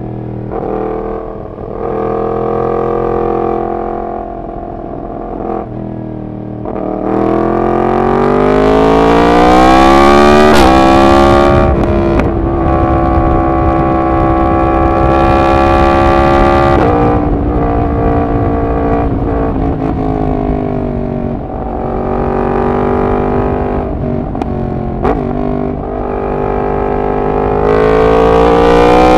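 Yamaha MT-10's crossplane inline-four with its catalytic converter removed, pulling through the gears. The revs climb from about seven seconds in and drop sharply at a quickshifter upshift about ten seconds in, then hold fairly steady. They fall again a little past halfway and climb once more near the end.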